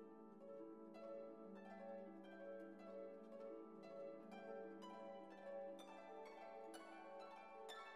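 Soft background music of plucked strings, a string of gentle notes over a held low tone.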